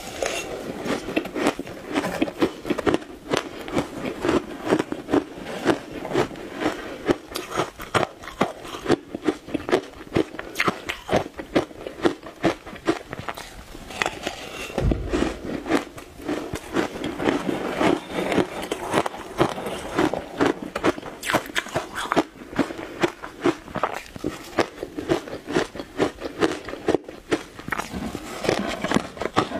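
Close-miked crunching and chewing of frozen shaved ice dusted with matcha powder: a dense run of sharp crackling crunches, several a second, bite after bite.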